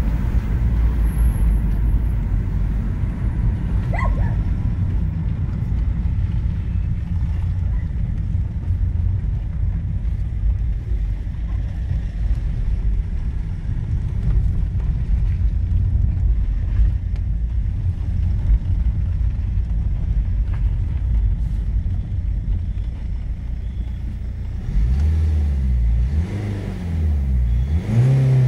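BMW E46 318d's M47N four-cylinder common-rail diesel running at idle with the injector ticking/knocking noise that the owner traced to worn injectors. Near the end the engine is revved up and back down twice.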